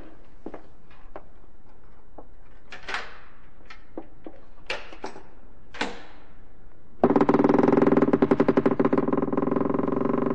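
Radio-play sound effects: slow, separate footsteps, then about seven seconds in a long, loud creak of a door swinging open, made of rapid grating pulses that turn rougher near the end.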